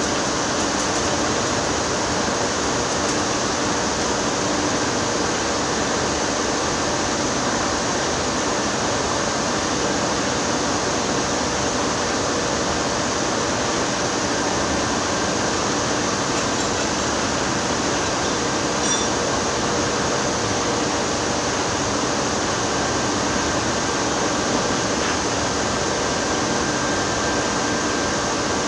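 Steady, unchanging machinery noise, an even hiss and hum with a few faint steady tones.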